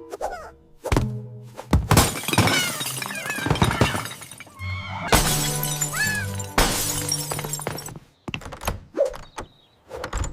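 Dramatic background music with loud crashes and sounds of something breaking and shattering.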